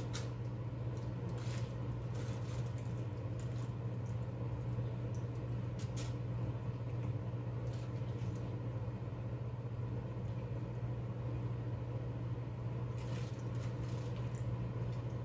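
A steady low hum, like a motor or fan running, with a few faint short rustles or taps of handling at the sink.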